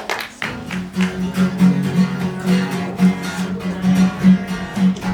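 Intro music with a quick, rhythmic strummed pattern over a repeatedly pulsing low note.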